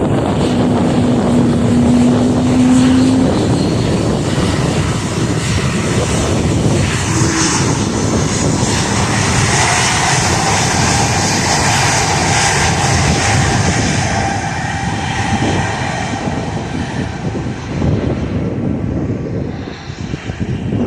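Embraer E2 jet airliner's turbofan engines passing, a loud continuous jet noise with a steady tone in the middle, fading away near the end.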